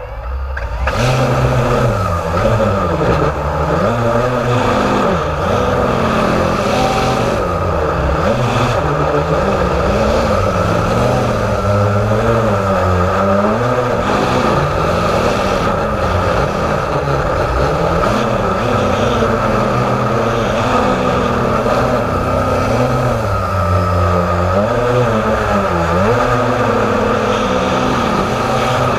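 Blade 350 QX3 quadcopter's electric motors and propellers spinning up at the start, then buzzing steadily in flight, its pitch rising and falling as the motor speeds change. Heard through the camera mounted on the quadcopter itself.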